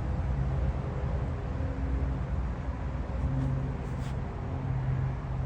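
Steady low mechanical hum with a droning pitch, over a faint background wash, with a couple of faint ticks about four seconds in.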